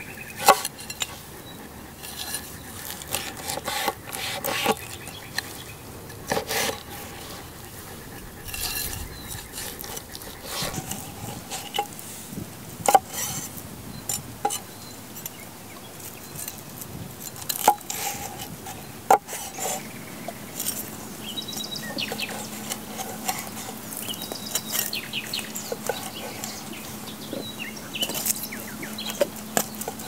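Cutlery and dishes clinking, scraping and knocking at irregular intervals, with a few sharper clinks that ring briefly.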